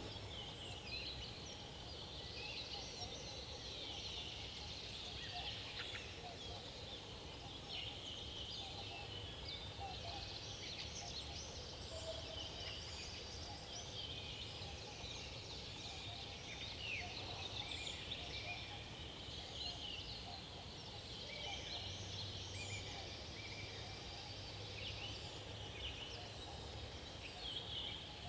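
Many small birds chirping and singing at once in a birch forest: a dense, faint chorus of short calls and trills, over a low steady hum.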